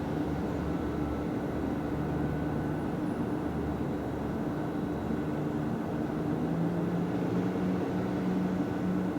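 Steady low background rumble of city traffic, with a faint hum whose pitch steps up slightly about two-thirds of the way through.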